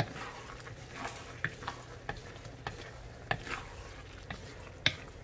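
A cooking utensil stirring eggplant, sardines and green onions in a pan, with irregular light knocks and scrapes against the pan over a faint sizzle from the food.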